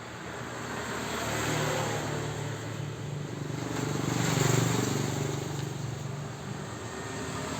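Motor vehicles passing by, their engine noise swelling and fading twice.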